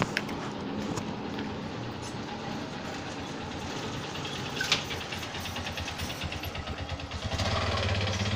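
An engine running with an even rhythmic chug, growing louder about seven seconds in.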